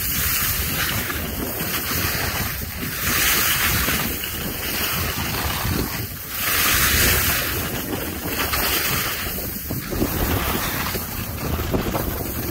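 Skis hissing and scraping over packed snow in a run of turns, a surge of hiss with each turn about every two to three seconds, over a steady rush of wind on the microphone.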